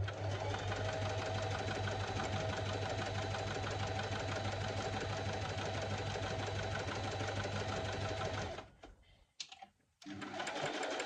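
Electric sewing machine sewing a straight stitch at a steady speed: a fast, even needle clatter over a motor hum. It stops after about eight and a half seconds and starts again about a second and a half later.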